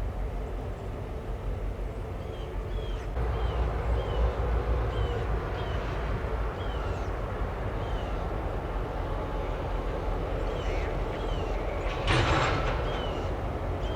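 Diesel locomotives rumbling steadily while switching cars, the rumble growing louder a few seconds in. About twelve seconds in there is a brief loud hissing burst, and a short falling high chirp repeats over and over throughout.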